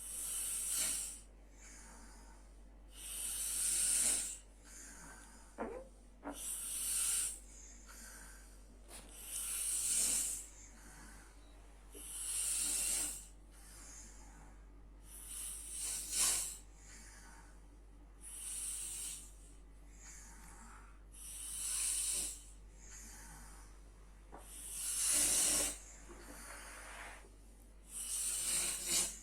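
A sleeping person snoring: about ten hissing, breathy snores, one roughly every three seconds.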